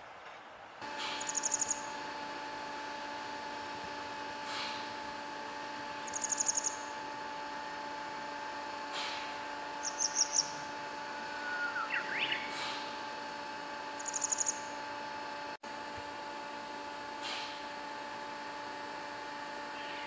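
Grey wagtail singing: short, high-pitched trilled phrases repeated every few seconds, with thin sharp chirps between them, over a steady faint hum.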